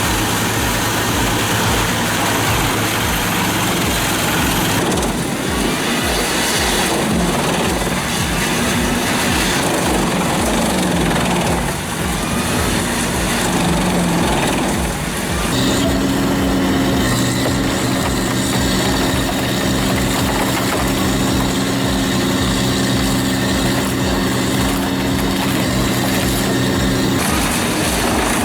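Large mobile drum wood chipper, driven by a 480 HP MAN diesel engine, running and feeding timber: a steady engine hum under a dense grinding, rushing noise. About halfway through, a steady droning pitch comes in and holds until just before the end.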